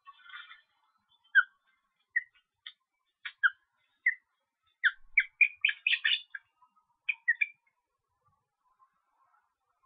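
Juvenile ospreys on the nest calling with short whistled chirps. Single calls come a second or so apart at first, then a quick run of overlapping chirps around the middle. A brief rustle comes at the very start.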